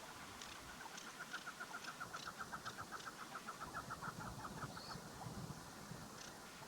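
Female chukar partridge calling: a fast, even run of clucking notes, about eight a second, lasting around four seconds.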